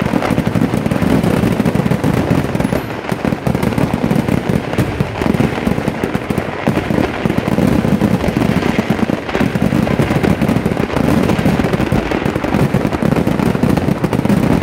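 Kerala vedikkettu fireworks: a dense, unbroken barrage of firecracker blasts, the bangs coming so close together that they run into one continuous rattle.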